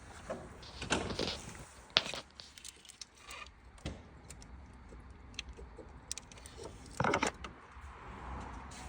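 Scattered metal clinks and knocks of tools and engine parts being handled during a water pump job, with a sharp click about two seconds in and a short clatter near the end.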